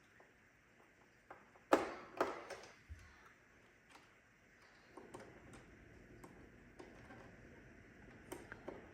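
Irregular clicks and knocks of plastic parts and screws being handled as a Roomba robot vacuum is put back together. Two louder knocks come about two seconds in, then lighter scattered ticks.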